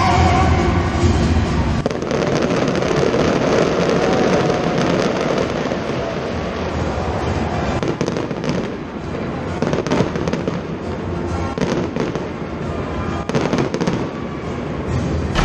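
Fireworks show with many shells bursting and crackling in quick succession, over music playing underneath; the music is louder than the fireworks for the first couple of seconds.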